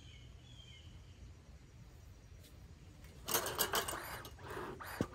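Bee smoker's bellows being pumped: after a quiet start, a quick run of short whooshing puffs begins about three seconds in, with a sharp click near the end. The smoker is freshly lit and still puffing hot smoke.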